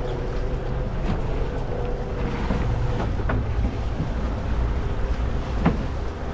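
Wind buffeting the microphone and sea water washing along a small fishing boat's hull, over a steady low rumble with a faint hum. A few sharp ticks stand out, the clearest about three and five and a half seconds in.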